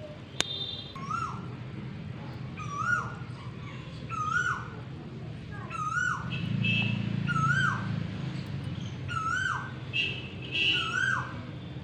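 An animal's high whining call, repeated about once a second, each call rising and then falling in pitch. A single sharp snap comes about half a second in.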